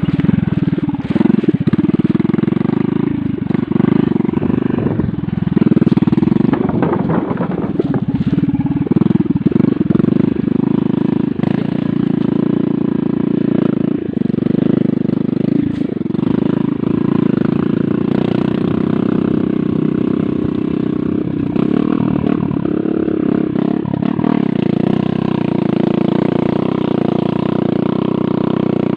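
Motorcycle engine running as it is ridden along a rough dirt trail, its pitch rising and falling with the throttle. Occasional knocks and rattles from the bike jolting over the bumpy ground.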